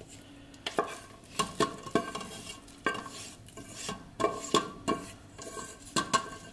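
Wooden spoon scraping and knocking against a metal bowl as sweet trahana is pushed out of it into a clay pot of broth. The knocks come at an irregular pace, several of them leaving the bowl ringing briefly.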